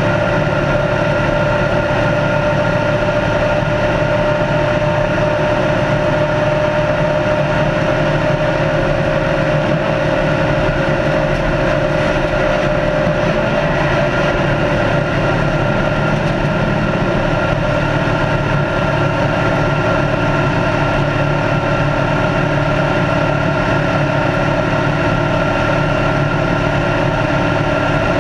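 Race car's engine running at a steady high-speed cruise, one constant drone whose pitch sags slightly for a few seconds midway, with steady road and wind noise under it.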